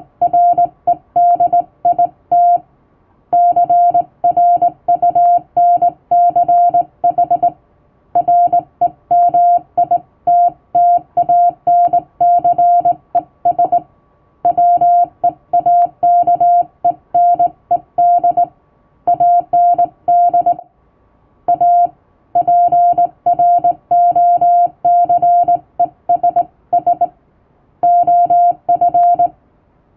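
Hand-keyed Morse code in plain English text: a single steady-pitched beep keyed on and off in quick dots and dashes, the words separated by short pauses.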